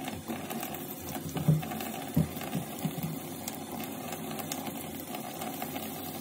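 Hand-sanding a raw (non-stainless) steel butcher-knife blade with 800-grit finishing paper: a texture of faint rubbing strokes over a steady background hum, with a few soft knocks about two seconds in.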